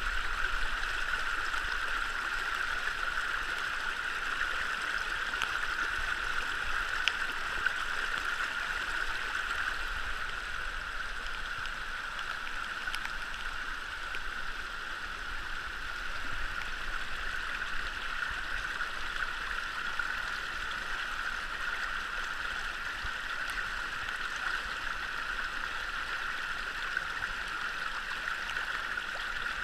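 Shallow mountain stream rushing over rocks and through a sluice box, a steady close rush of water, with a few faint clicks.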